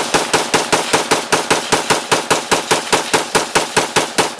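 AR-15-style rifle fired in a rapid, even string of shots, about five a second.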